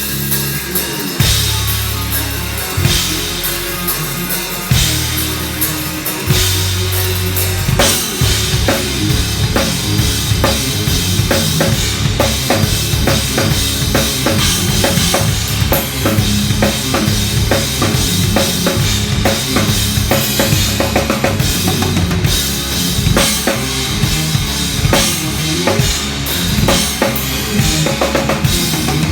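Drum kit being played, with bass drum and snare. The first few seconds hold long low bass notes with spaced hits, then from about eight seconds in it breaks into a fast, dense run of strokes.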